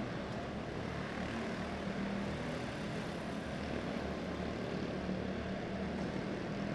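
Quarter midget race cars' small engines running steadily as the cars lap a dirt oval, an even, continuous drone.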